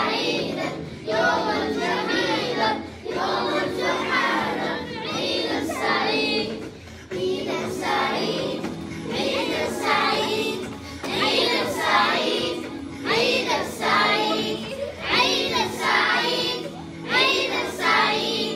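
A class of primary-school children singing together as a group, in sustained phrases with short breaks between them.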